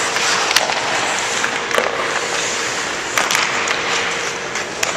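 Ice hockey skates scraping and carving on rink ice, with four sharp knocks of sticks striking pucks.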